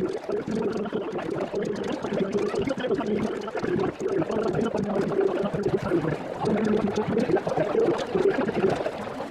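Crowd chatter and general noise of a stadium audience, a dense mix of many voices with a low, wavering hum underneath.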